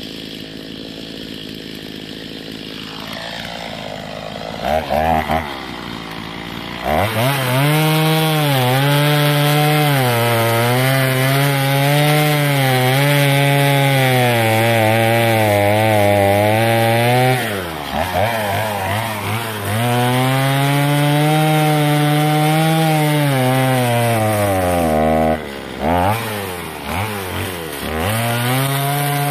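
Two-stroke gas chainsaw idling, revved in short blips, then bucking a log at full throttle, its pitch sagging and recovering as the chain loads in the wood. The engine drops off as one cut goes through, picks up into a second cut, revs briefly again, and starts another cut near the end.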